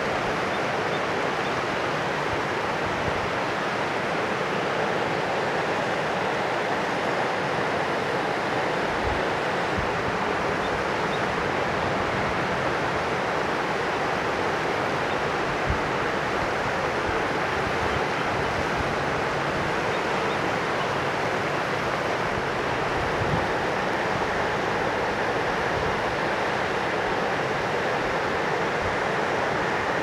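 Mountain river rushing steadily, a constant even hiss of flowing water, with a few faint low bumps of wind on the microphone.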